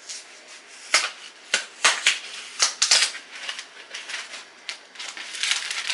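Cardboard box of parchment paper being handled and opened: a string of sharp, irregular cardboard clicks and scrapes, with a denser rustle near the end.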